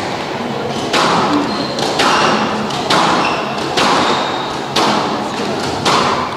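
Squash ball struck back and forth in a rally, about six sharp hits roughly a second apart, each ringing on in the glass-walled court.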